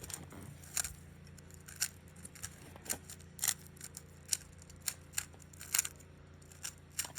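Layers of a MoYu WeiLong WRM V9 speedcube being turned during a solve: irregular sharp clicks, one to three a second, over a faint steady hum.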